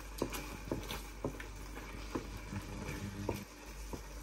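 Wooden spoon stirring stewed peppers and tomatoes in a stainless steel frying pan, giving light, irregular taps and clicks against the pan.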